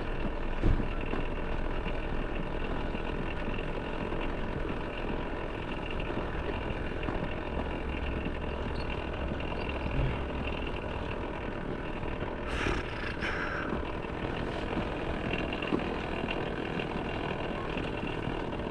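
Steady vehicle engine and road noise with a faint hum; a short hiss about twelve and a half seconds in.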